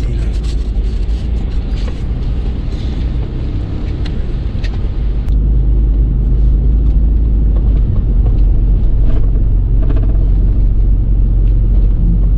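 Low engine and drivetrain rumble of an off-road vehicle driving slowly, heard from inside its cab, with a few light knocks from the rough track. The rumble gets louder about five seconds in.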